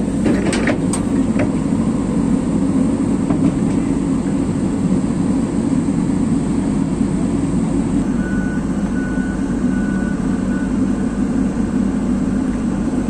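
Amphibious excavator's diesel engine running steadily as the machine moves on its freshly rejoined track, with a few sharp clicks about a second in.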